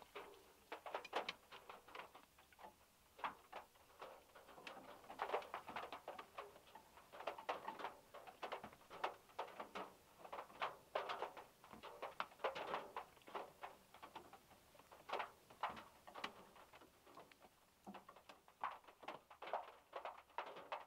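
Raindrops striking the metal roof of a VW Beetle, heard from inside the car as irregular, uneven taps several times a second.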